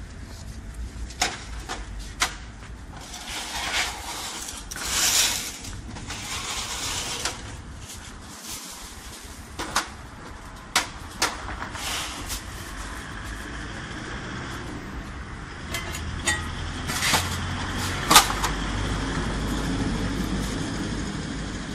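Street traffic noise with many short, sharp clicks and knocks scattered through it; a vehicle passes about five seconds in, and a deeper rumble builds over the last few seconds.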